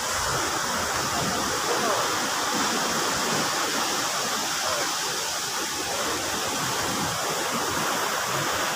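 Steady rushing noise of surf and wind on an open beach, continuous and unbroken.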